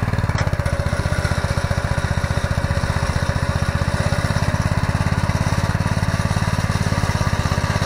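Earthquake Victory rear-tine tiller's small four-stroke engine running steadily at part throttle, with an even rapid putter, while its rear tines churn into grass turf.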